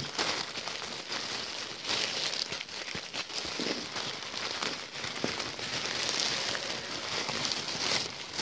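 Gift wrapping crinkling and rustling continuously with small crackles as a package is unwrapped by hand.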